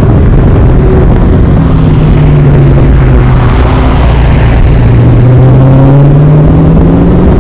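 Dodge Charger Daytona 392's 6.4-litre Hemi V8 exhaust at low revs while driving, a deep steady note that sags a little in pitch and then rises again near the end.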